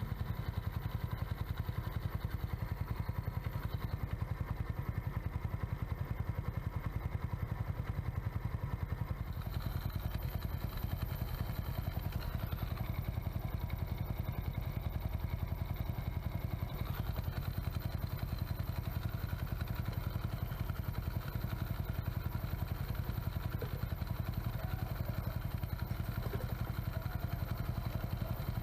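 Kymco Visa R motorcycle's single-cylinder engine idling steadily with an even, rapid beat, its primary clutch fitted with new rubber dampers and clutch weights.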